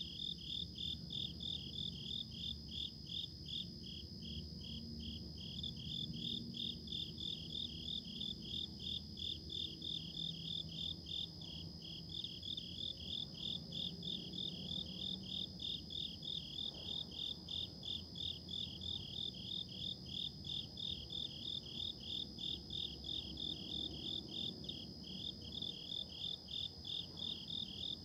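Insects chirping in an even rhythm, about two to three chirps a second, over a continuous high-pitched insect trill, with a faint low rumble underneath.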